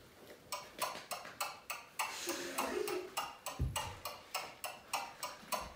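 Intro of a rap song's beat: a crisp ticking percussion at about four clicks a second, with a deep kick-drum hit about halfway through and another near the end.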